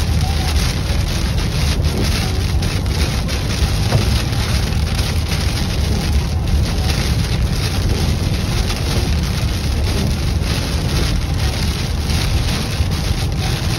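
Heavy rain hitting a moving vehicle's roof and windshield over a steady low rumble of tyres on a wet highway, heard from inside the cab.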